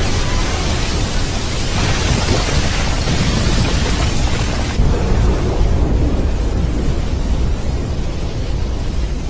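Anime sound effect of a huge shockwave blast: one long, loud, continuous explosion rumble with a deep low end, its hiss thinning about five seconds in.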